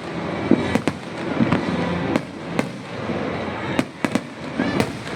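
Aerial fireworks display: about ten sharp bangs of bursting shells at irregular intervals, over a continuous noise of further bursts.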